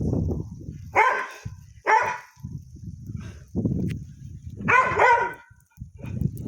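A dog barks three times, about a second in, a second later, and again near five seconds, the last bark drawn out with a rise and fall in pitch. Under it, gusts of blizzard wind buffet the microphone with a low rumble.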